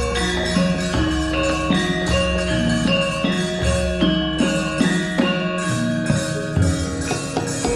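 Javanese gamelan ensemble playing: bronze metallophones strike a steady stream of ringing notes, over low sustained tones.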